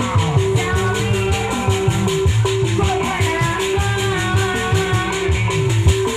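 Live Sundanese jaipongan music from a full ensemble: a fast, even high rattle over a repeating pitched melody of short held notes, with low drum strokes and a wavering melodic line above.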